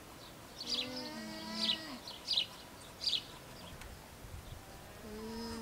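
Alpaca humming: a low, drawn-out hum lasting over a second, then a shorter second hum near the end. Several short, high bird chirps come in between.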